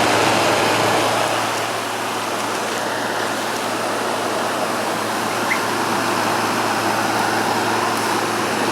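Frigidaire window air conditioner running with its compressor on: a steady rush of air from the condenser fan blowing hot air out the rear, over a low steady hum.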